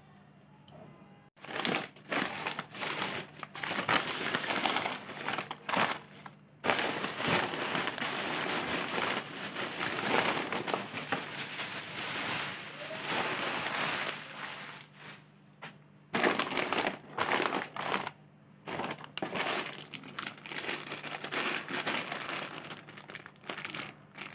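Plastic snack packets and a polythene bag crinkling as they are handled and moved about, starting about a second in and going on in stretches with short breaks.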